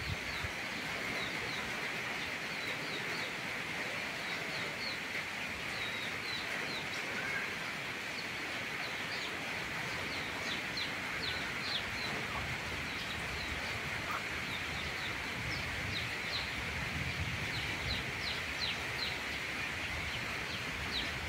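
Steady hiss of rain, with many short, high bird chirps scattered throughout and coming more often in the second half.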